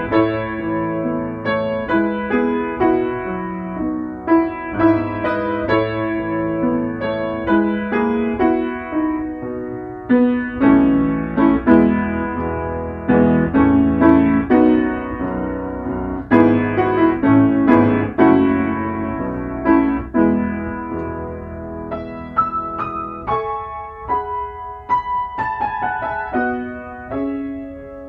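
Solo piano playing a prelude piece: single notes and chords struck and left to ring, thinning to sparser, quieter notes about three-quarters of the way through.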